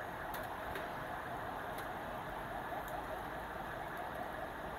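Steady fine sizzling and crackling from a charcoal grill, where a large steel pot of melted butter is heating and skewered kababs are cooking over the coals. A few faint clicks sound through it.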